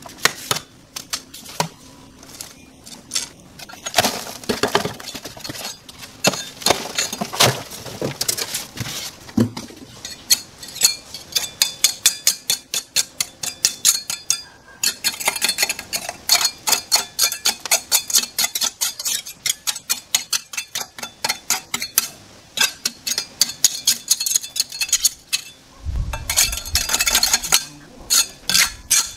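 Steel trowel scraping excess mortar from the joints of a brick arch: quick scratchy strokes and clinks of metal on brick, several to the second. Near the end a heavier, lower scrape as the trowel works debris on concrete.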